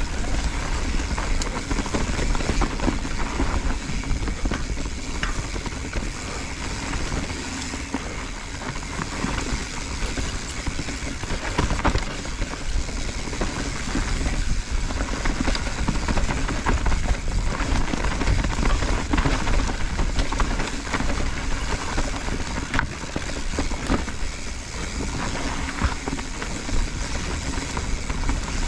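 Mountain bike riding down a dirt forest trail: tyres rolling over dirt, roots and leaves with constant clatter and knocks from the bike over the bumps, and a steady low rumble of wind on the microphone.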